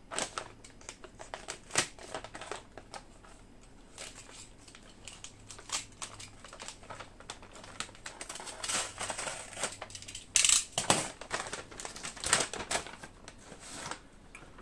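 Plastic packaging crinkling and rustling with scattered clicks and taps as a kit bundle of sails and ropes is unwrapped by hand, the loudest crackling bursts coming about two-thirds of the way in.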